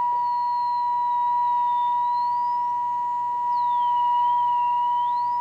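Westinghouse H-204A tube radio reproducing a signal generator's steady modulated test tone during AM alignment. A fainter high whistle slides slowly down, climbs, drops sharply about three and a half seconds in, and climbs again near the end.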